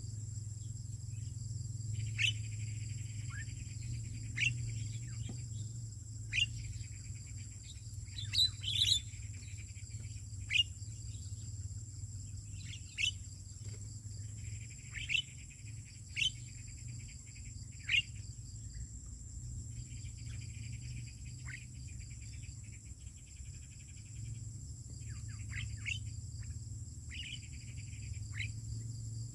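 Birds giving short, sharply descending chirps, one every second or two, over stretches of buzzy insect trilling and a steady high insect whine. A steady low hum runs underneath.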